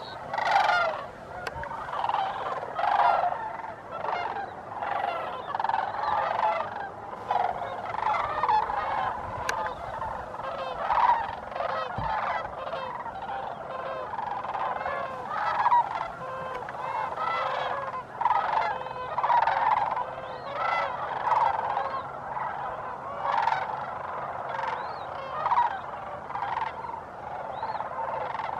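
A flock of sandhill cranes calling together: many overlapping rattling, trumpeting calls with no break.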